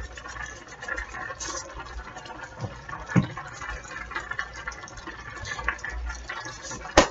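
Thick spaghetti sauce bubbling in a skillet while seasoning is shaken over it. There is a thump about three seconds in and a sharp knock near the end.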